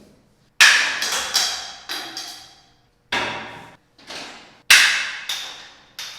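A series of about ten sharp, loud percussive hits at uneven spacing, each ringing out and dying away.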